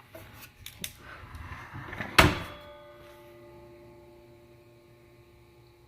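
Sliding compound miter saw being adjusted by hand: a run of light clicks and knocks, then one sharp metallic clunk about two seconds in that rings on faintly for a few seconds.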